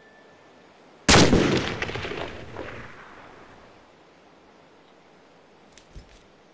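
A single loud gunshot about a second in, with a long echoing tail that dies away over about two seconds.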